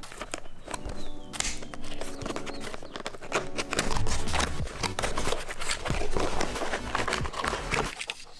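Background music with a dense, uneven run of sharp clicks and knocks starting about two seconds in.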